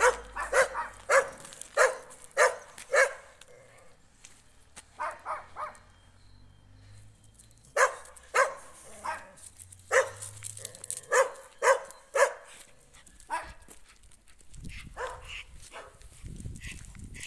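Dog barking: sharp, short barks about two a second, in runs broken by pauses of a second or two.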